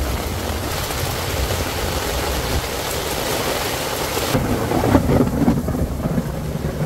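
Heavy rain falling on a tarp and on wet surfaces, a dense steady hiss. About four seconds in the hiss thins and a low rumble of thunder rises.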